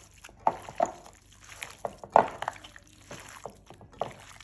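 Wet squelching of raw beef pieces being mixed and squeezed by hand with onion, spice paste and oil in a glass bowl, in irregular squishes, the loudest about two seconds in.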